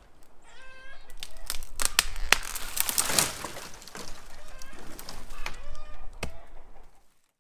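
Chickens clucking in two short runs of calls, among a scattering of sharp clicks and knocks.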